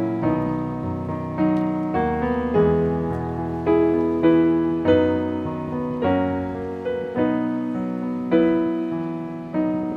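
Slow piano music: a new note or chord about every second, each left to ring and fade.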